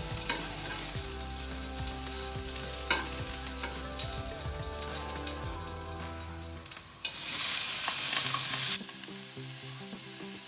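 Chopped ginger frying in hot oil in a steel wok, with the spatula clicking and scraping against the pan. About seven seconds in, chopped onion and tomato go into the oil and set off a loud burst of sizzling that lasts about two seconds, then settles back to a lower sizzle.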